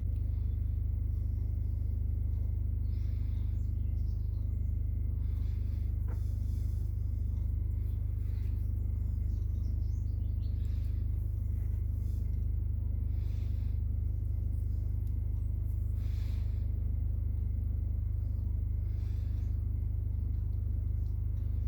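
Faint, scattered rustles and a small click from a car window switch's small plastic and metal parts being handled and greased during reassembly, over a steady low hum.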